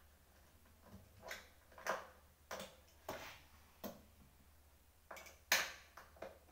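Irregular light clicks and knocks from hands working on the parts of an office chair being repaired, the loudest about five and a half seconds in.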